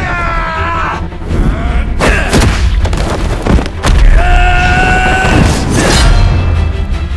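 Dramatic film score with heavy booming hits and several sharp sword-fight impacts, with held ringing tones between them.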